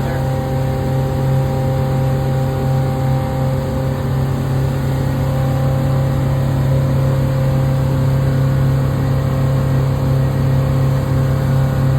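Mercury MerCruiser 5.7-litre V8 sterndrive engine running steadily at an even pitch, fresh from a tune-up, sounding smooth and healthy.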